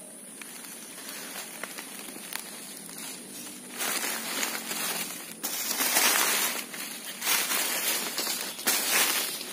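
Rustling and crunching, as of dry leaves and undergrowth being pushed through or trodden on. It comes in irregular surges and gets much louder about four seconds in.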